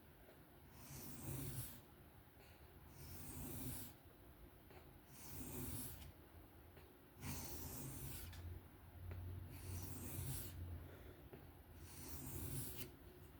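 Steel knife blade stroked freehand across a sharpening stone: about six soft, scraping strokes, roughly one every two seconds.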